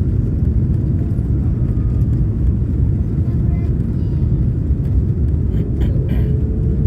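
Airbus A330 cabin noise on final approach: a steady, deep rumble of engine and airflow heard from inside the passenger cabin.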